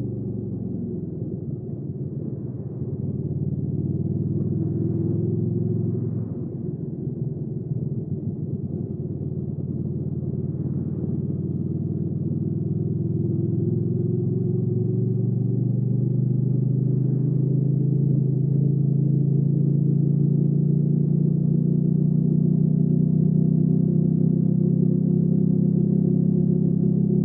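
Hyosung GV300S Aquila's V-twin engine running under way, its note dipping about six seconds in, then climbing slowly in pitch and growing louder through the rest.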